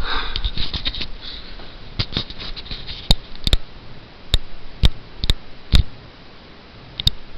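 Camera handling noise: a brief rustle as the camera is moved, then about seven sharp, irregular clicks and taps over a few seconds, with no bee buzzing heard.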